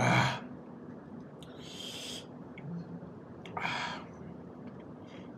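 Close-miked eating sounds: a man eating with his hands, slurping and blowing breathy exhales through his mouth over hot food. A loud one comes right at the start, then two more about two seconds apart, and a faint one near the end.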